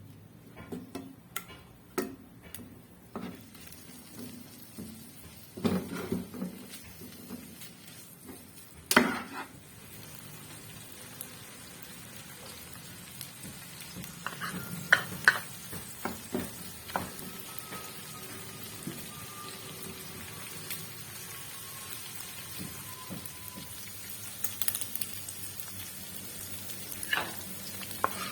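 Cooking sounds: scattered knocks and clinks of utensils and cookware, then a steady sizzle of food frying in a pan that sets in about ten seconds in and grows louder, with more clinks of stirring.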